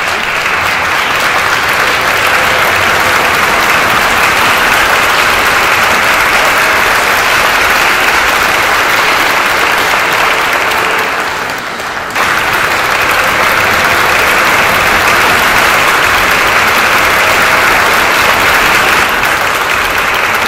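Audience applauding steadily. The clapping sags briefly about halfway through, then comes back at full strength all at once.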